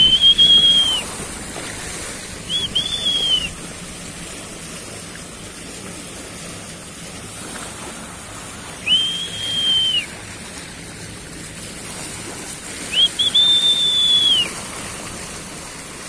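A person whistling four long, level notes, each about a second long, over a steady wash of sea and wind noise.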